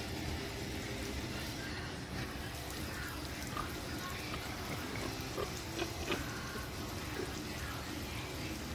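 Lawn sprinkler spraying water in a steady hiss, with a few short pig grunts in the middle.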